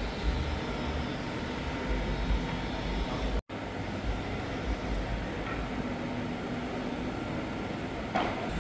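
Steady outdoor background noise with irregular low rumbles, broken by a brief dropout about three and a half seconds in.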